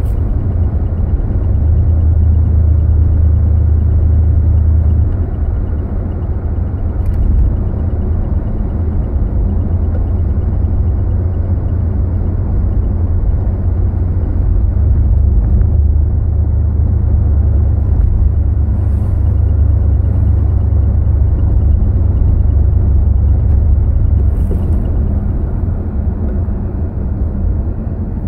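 Car engine and road noise heard from inside the cabin while driving: a loud, continuous low rumble that grows stronger about two seconds in for a few seconds, and again for several seconds from about fifteen seconds in.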